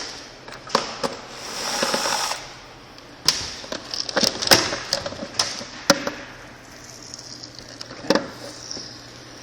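Plastic e-bike battery case being pried open with a small flathead screwdriver: a series of sharp clicks and snaps as the case clips let go, with a short scraping rasp about two seconds in.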